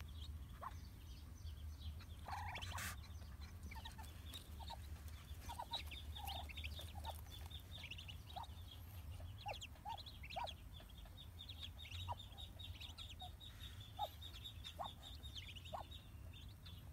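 Newly hatched Muscovy ducklings peeping: many rapid, overlapping short high calls, with scattered lower single notes among them.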